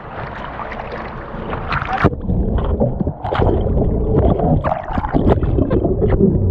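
Seawater sloshing and splashing at the surface, then, about two seconds in, the sound turns muffled as the camera goes under: a loud rush of churning bubbles with many small knocks and clicks, heard through a GoPro's underwater housing.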